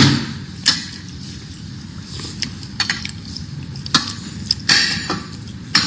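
Spoon clicking against a plate and bowl while a person eats, with mouth and chewing sounds: about ten sharp clicks at uneven intervals.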